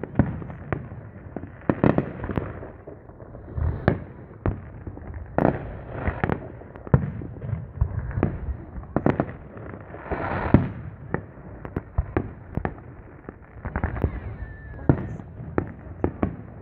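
Aerial fireworks shells launching and bursting: an irregular run of booms and sharp cracks, with a longer hiss about ten seconds in.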